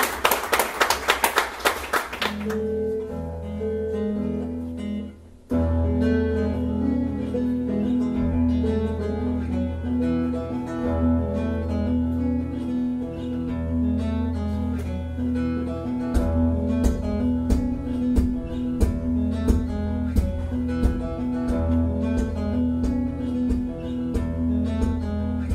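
Applause ends in the first couple of seconds, then a solo acoustic guitar starts an instrumental intro: a repeating pattern of picked notes over a low bass line. It breaks off briefly about five seconds in, then continues steadily, with sharper strums later on.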